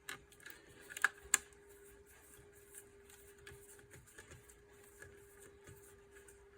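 Faint clicks and taps of wire conductors being pushed into the terminals of a fire alarm sounder base and folded in by hand, with two sharper clicks about a second in, over a faint steady hum.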